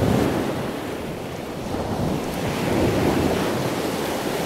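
Ocean surf: a steady rush of waves that swells near the start and again about three seconds later.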